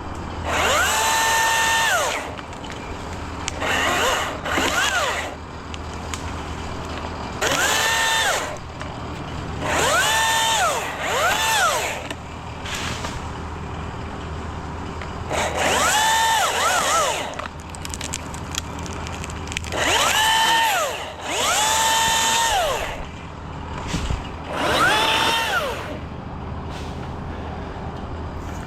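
A chainsaw revving in short bursts, about ten times. Each rev climbs to a held high pitch for about a second and then drops back, as in a series of quick cuts. A steady low drone runs underneath.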